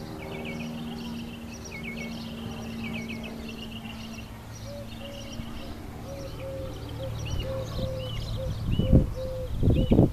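Songbirds chirping and calling outdoors, with quick repeated chirps and a series of short, evenly repeated notes from about halfway through. A steady low hum fades out over the first few seconds, and a few loud low bumps of noise come near the end.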